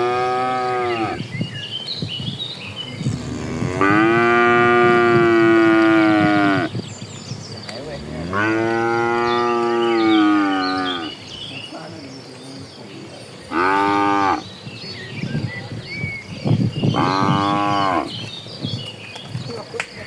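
Cows in a herd mooing: a string of loud, drawn-out moos, one every few seconds. One call is ending about a second in, two long calls of about three seconds follow, then a short one and another, with faint high chirps in the gaps.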